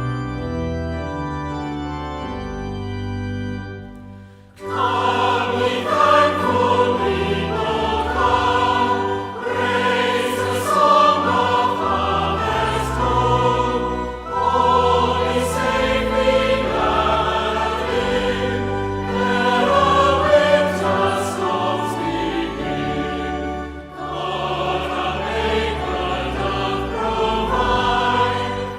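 Church organ playing a short introduction of held chords, then a choir singing a hymn with organ accompaniment from about four and a half seconds in.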